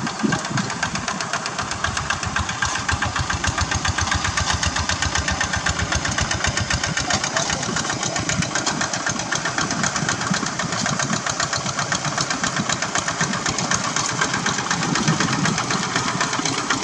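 Two-wheel hand tractor's single-cylinder diesel engine running under load as it pulls a plough, a rapid, even chugging.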